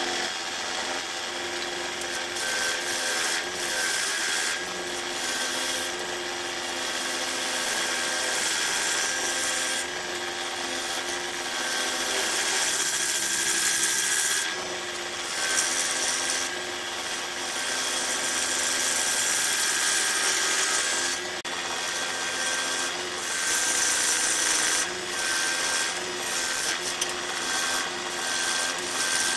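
Wood lathe running with a steady motor hum while a turning gouge cuts the outside of a large jacaranda bowl blank. The hiss of the cut swells and fades as the tool is pushed along, with short breaks where the tool comes off the wood, one about halfway through.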